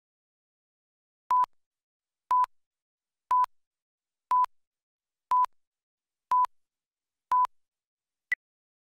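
Film-leader countdown beeps: seven short beeps of the same pitch, one a second, then a single much shorter, higher blip near the end.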